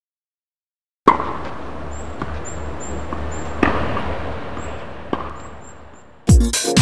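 About a second in, a sharp knock opens a steady low rumble with a few softer knocks and faint, short high chirps; it all fades away. Near the end, electronic dance music with a heavy kick drum starts.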